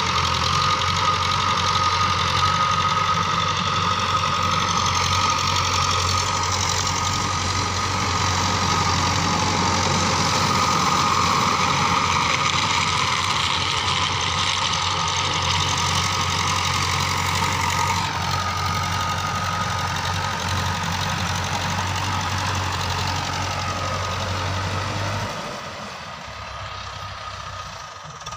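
Farm tractor engine running steadily while the tractor pulls a rotary tiller through dry soil, with a steady high whine over the engine. The sound drops quieter near the end.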